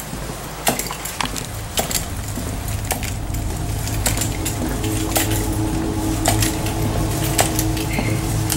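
Walking footsteps on a bare concrete floor, a sharp click about every half second, with light metal clinking on the steps, over a steady low hum that gains a steady tone from about halfway through.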